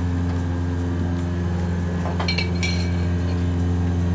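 Stainless steel bowl clinking a few times, a little past two seconds in, as chicken wings are tossed in sauce with a spatula. Under it runs a steady low mechanical hum of kitchen equipment.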